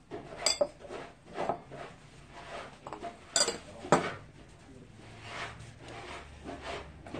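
A string of sharp clinks and knocks from small hard objects, the loudest about half a second in and twice close together between three and four seconds in.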